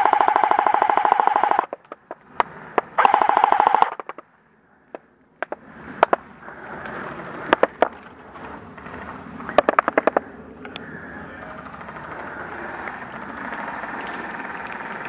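Electric airsoft rifle (AEG) firing on full auto: a burst of about a second and a half, a second burst of about a second, then a few short bursts and single shots, each burst a fast buzzing rattle of the gearbox cycling.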